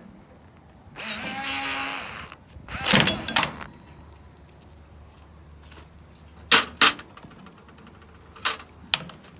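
Handling noises from cooker parts and tools being worked on: a hiss lasting about a second, then a loud clatter, then a few sharp clicks and knocks.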